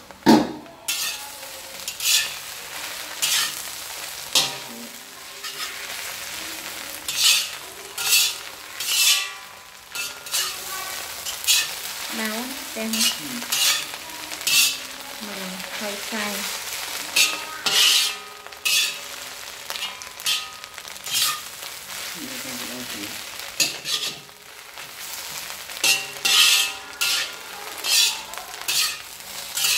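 Food frying and sizzling in a hot pan while a spatula stirs it, with short scraping strokes against the pan every second or so.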